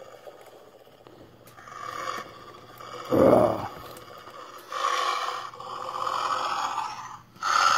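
Rough scraping, rasping noises in several bursts, the loudest about three seconds in, as plastic toy wolf and polar bear figures are made to fight.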